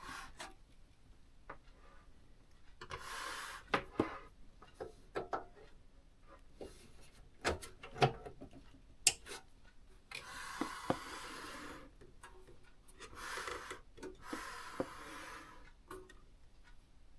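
Hands working on a PC: four rubbing or wiping strokes of about a second each, a few seconds in and again in the second half, with scattered sharp clicks and light knocks between them.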